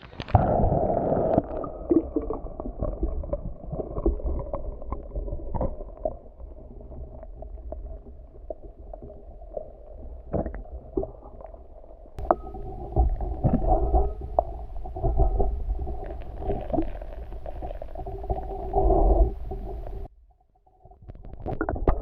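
Muffled water gurgling and sloshing, with scattered knocks, that cuts off suddenly about twenty seconds in.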